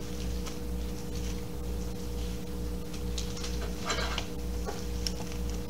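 A steady low hum, with a few faint rustles and soft clicks of Bible pages being turned; the strongest rustle comes about four seconds in.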